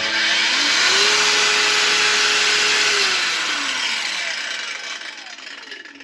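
SeeSii 21V cordless angle grinder switched on: its motor whine rises quickly to full speed, runs steadily for about two seconds, then drops in pitch and fades as the disc winds down after the trigger is released.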